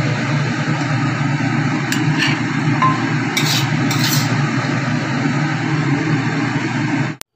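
Stir-fried long beans and tempe sizzling in a stainless steel wok while a spatula stirs and scrapes the food against the pan, with a few short scrapes about two and four seconds in. The sound cuts off suddenly near the end.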